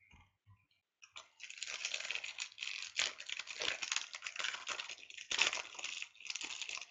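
The wrapper of a 2015 Bowman Chrome Jumbo baseball card pack being torn open and crinkled by hand: a dense, crackly rustle starting about a second in and going on with irregular crackles.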